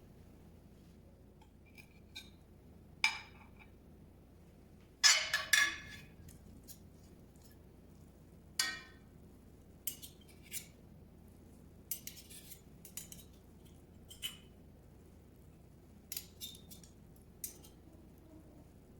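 Utensils clinking and tapping against dishes: scattered sharp clinks, with a louder cluster about five seconds in and a brief ringing clink near nine seconds.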